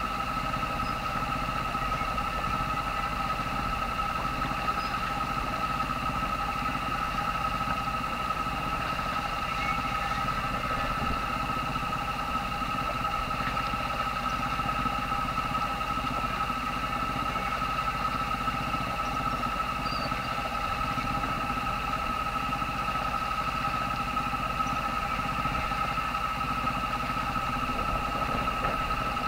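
A sailboat's auxiliary engine running steadily at low speed: a constant low rumble with a steady high whine over it.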